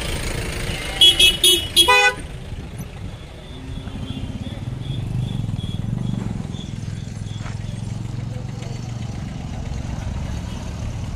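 A vehicle horn honks four quick times about a second in. Then a motor vehicle's engine runs with a steady low rumble.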